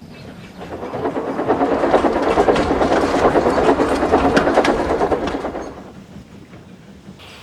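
Train sound effect of a steam tank engine with a string of freight trucks going by: a dense rattle of wheels and wagons that swells about a second in and fades away after about five and a half seconds.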